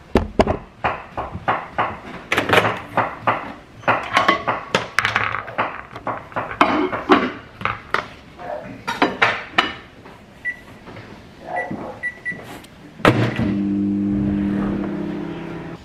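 Microwave oven being loaded and started: a run of knocks and clatter as the plate goes in and the door is handled, then a few short keypad beeps about ten to twelve seconds in. Near the end the oven starts up with a steady hum.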